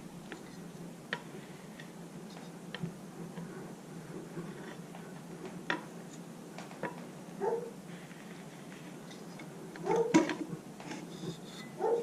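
Scattered light clicks and taps of metal parts and tools being handled as an outboard's water pump and lower unit are fitted back together, with a short muffled sound about ten seconds in that is the loudest moment.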